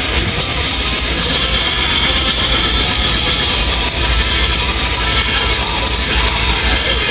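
Rock music with electric guitar, playing steadily and loudly.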